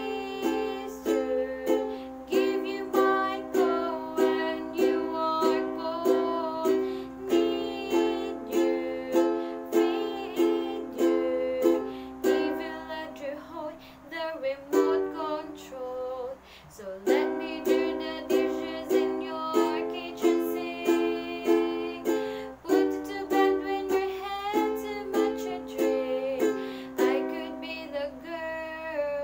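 A ukulele strummed in a steady rhythm while a woman sings along. About halfway through, the strumming briefly thins to a few held chords before picking up again.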